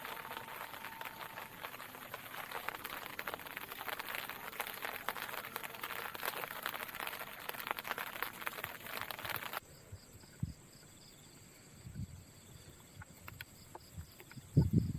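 A dense, steady crackling patter that cuts off suddenly about ten seconds in. After it come quiet night insects chirping in a steady pulse, and a few soft knocks near the end.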